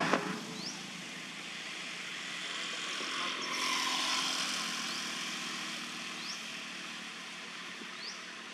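A passing vehicle's steady rush, swelling to its loudest about four seconds in and then easing off, with a bird giving a few short rising chirps over it.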